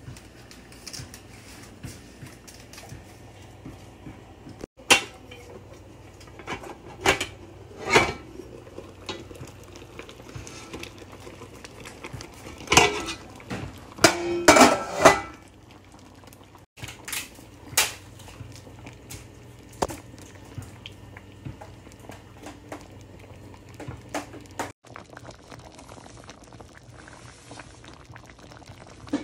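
Metal clinks and clanks on a stainless steel pan: scattered sharp knocks, with the loudest and densest run about 13 to 15 seconds in, over a steady low hum.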